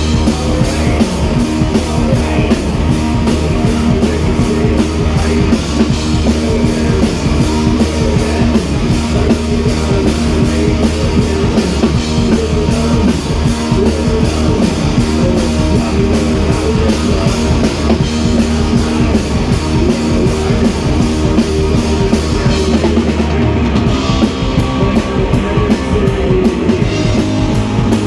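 Live rock band playing: a drum kit beating a steady fast rhythm with electric guitar over it, heard from right beside the drums.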